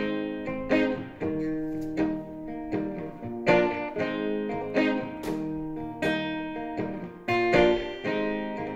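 Acoustic steel-string guitar with a capo played solo, plucked chords ringing out with a sharp attack about twice a second in a steady rhythm.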